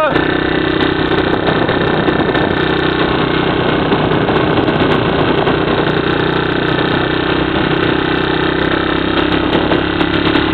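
A vehicle engine running at a low, steady speed with a constant hum, over a steady rush of tyre and road noise from driving slowly on a gravel road.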